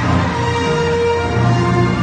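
Music playing at a steady level, with long held notes over a sustained low accompaniment.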